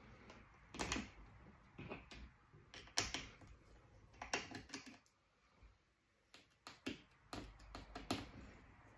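Light clicks and taps of hands handling the opened plastic case and internal battery of a Lenovo ThinkPad T450 laptop: a scattering of sharp clicks a second or two apart, with a quiet gap past the middle.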